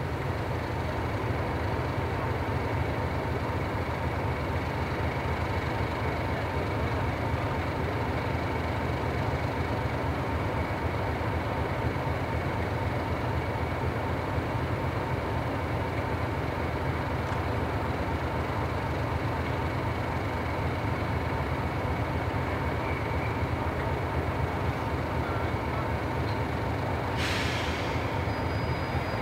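Diesel locomotive engine running steadily, a low even drone with a faint steady whine over it. A short hiss near the end.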